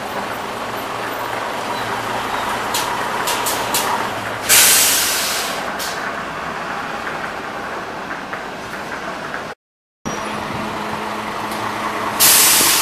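Diesel city buses running at a bus terminal, with two sharp hisses of released air from a bus's air brakes, one about four and a half seconds in and another near the end. The sound drops out for a moment shortly before ten seconds.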